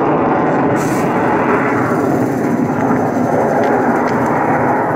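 MiG-29 Fulcrum fighter's twin RD-33 turbofan engines, a loud, steady jet noise from the aircraft maneuvering overhead.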